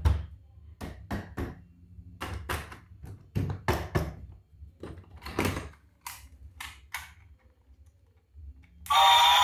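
A run of irregular sharp clicks and knocks from handling toy vehicles and their packaging during an unboxing. Near the end, loud music starts.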